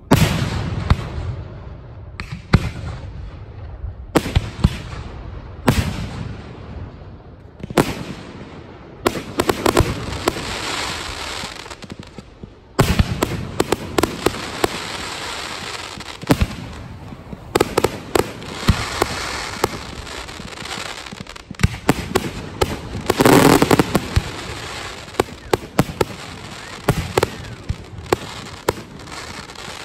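Fireworks display: aerial shells bursting with sharp bangs every couple of seconds at first, then a dense run of bangs and rapid crackling from about a third of the way in, loudest a little past the two-thirds mark.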